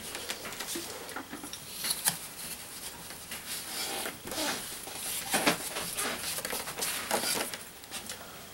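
Irregular scraping and dabbing as Thermix chimney insulation, a cement-like mix, is packed around a stainless steel stovepipe with a paint stirrer and by hand. A few louder strokes come about 2, 5½ and 7 seconds in.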